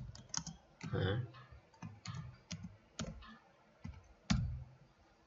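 Computer keyboard being typed on: about a dozen separate key clicks at an irregular pace, the loudest one near the end.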